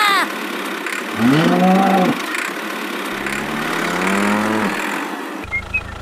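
A cow mooing twice: two long calls, each rising and then falling, over a steady engine-like noise.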